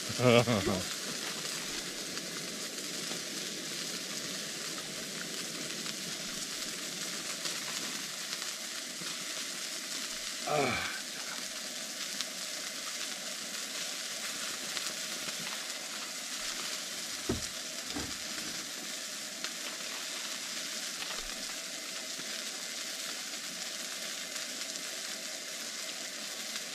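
Rib-eye steak sizzling steadily as it fries over a pump-pressurized camp stove. A short falling sound comes about ten seconds in, and two light knocks come around seventeen to eighteen seconds.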